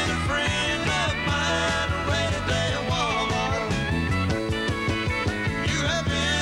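A country band playing live, with sliding lead lines over a steady bass and drum beat.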